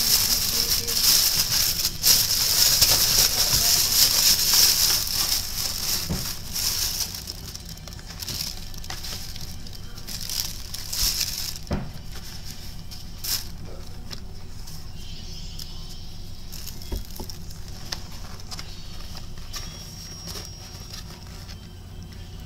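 Paper takeout packaging and a cardboard food box rustling and crinkling as they are handled and opened. The crinkling is loudest for the first several seconds, then goes quieter with scattered crackles and taps.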